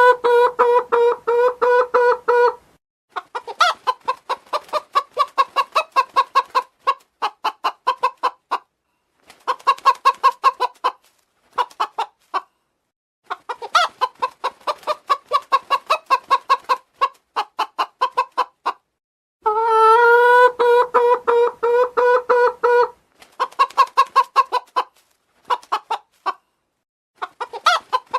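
Domestic chicken clucking in quick runs of short notes, about ten a second, broken by brief pauses.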